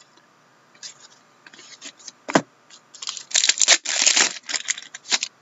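Wrapper of a trading-card pack being torn open and crinkled by hand, a dense crackling in the second half after lighter handling rustles and a single sharp click about two seconds in.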